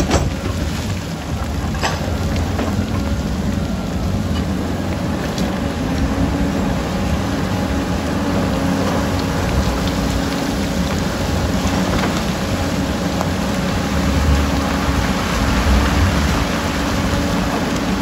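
Heavy diesel earthmoving machinery working: a Komatsu D85EX crawler bulldozer and a crawler excavator running under load, a steady deep rumble with the grinding of earth and rock being pushed. A few sharp clanks of rock come through it.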